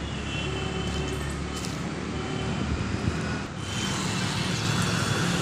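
Road traffic noise: a motor vehicle running close by with a steady low rumble that fades about three seconds in.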